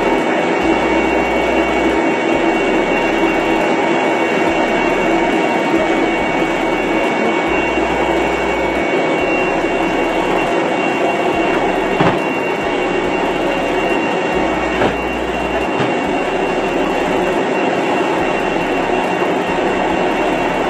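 Steady loud drone of aircraft turbine machinery with a thin high whine, heard inside an aircraft's cargo hold. Two brief knocks about twelve and fifteen seconds in.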